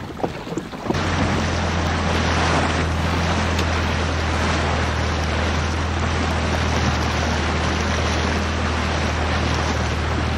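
A motorboat's engine running at steady speed, a constant low hum, under loud wind on the microphone and water rushing past the hull; it all comes in suddenly about a second in.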